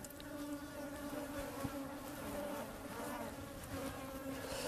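Flying insects buzzing, a faint, steady drone.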